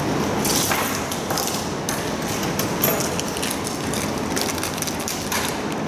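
Irregular mechanical clicks and taps over steady background noise.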